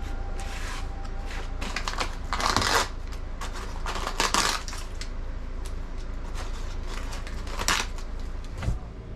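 Sanding a wall: irregular scratchy bursts of sanding over a steady low hum.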